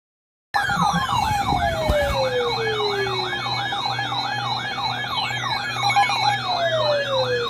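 Electronic siren starting about half a second in: a fast yelp rising and falling about three times a second, with a slower wail sliding down in pitch over a few seconds, then starting again near the end.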